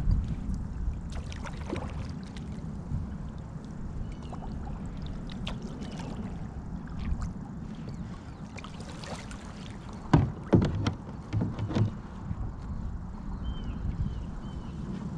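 Handling noises while a fishhook is worked out of a small turtle: scattered knocks, with a cluster of loud thumps about ten seconds in, over a steady low rumble.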